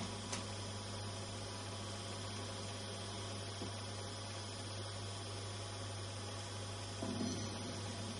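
Steady low mains hum with hiss, with a faint click about a third of a second in and a brief soft thump about seven seconds in.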